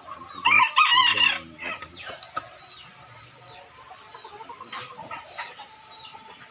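A rooster crows once, loudly, starting about half a second in and lasting about a second. Chickens then cluck softly, with a few light knocks from the coop's boards and wire.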